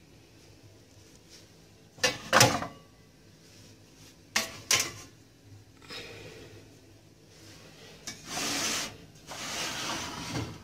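Kitchen drawers being shut and opened: two pairs of sharp knocks with a metallic clatter about two and four and a half seconds in, then a long sliding rumble near the end as a drawer of frying pans is pulled open.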